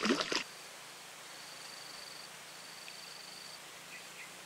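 Faint outdoor ambience with an insect trilling, a thin high pulsing tone heard in two stretches of about a second each. A brief noise at the very start.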